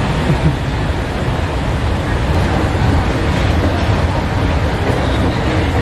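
Steady low rumble with an even hiss over it: escalator machinery and underground metro station ambience, heard while riding up the escalator.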